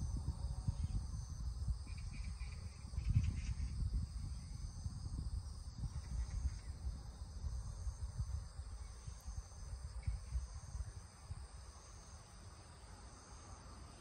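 Background chorus of insects: a steady, high-pitched chirring that swells and fades about once a second. It sits over a louder, uneven low rumble.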